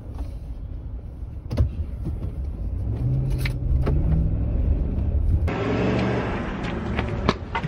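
Car engine and road noise heard from inside the cabin while driving, the engine note rising as the car speeds up about three seconds in. About five and a half seconds in it cuts to a steady outdoor hiss.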